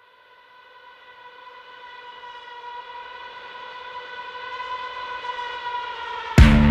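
Background music: one held, steady synth note swelling slowly, then a loud rock track with drums and guitar kicks in abruptly near the end.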